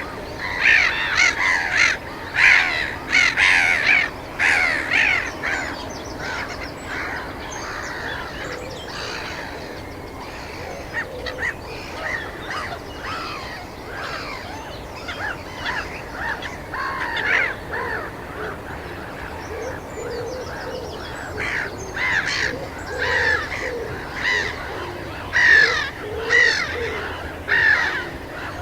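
A flock of gulls calling, with many short overlapping cries. They are busiest in the first few seconds, thin out in the middle and pick up again toward the end.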